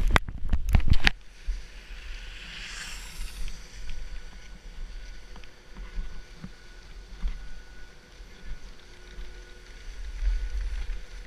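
A few loud knocks in the first second as the helmet-mounted camera is handled, then low wind rumble on the microphone and skis sliding over packed snow, with a hissing ski scrape about two to three seconds in.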